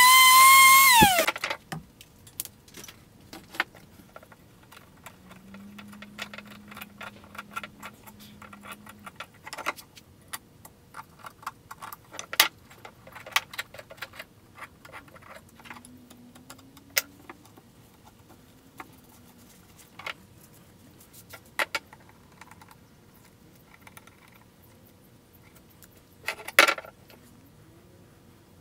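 Electric sander running with a high, steady whine, then switched off and winding down about a second in. After that come light scattered clicks and clinks of small metal parts handled on a wooden workbench, with a louder clatter near the end.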